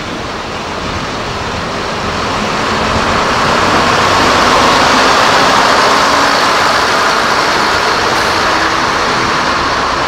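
A train passing close by, its noise building over the first few seconds to a peak around the middle and then holding steady.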